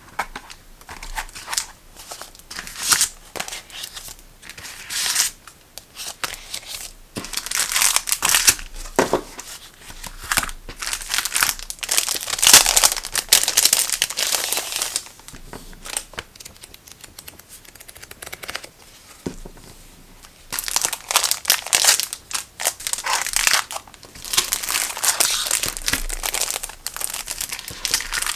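Thin clear plastic sleeves and plastic packaging being handled, crinkling and rustling in irregular bursts, with a quieter stretch in the middle.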